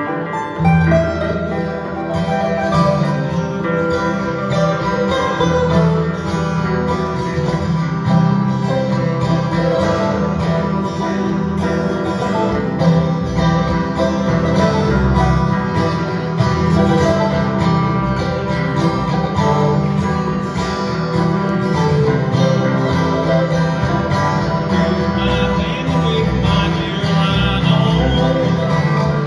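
A small acoustic band plays a country-bluegrass tune, amplified through a PA: two strummed acoustic guitars, a mandolin and an electric bass.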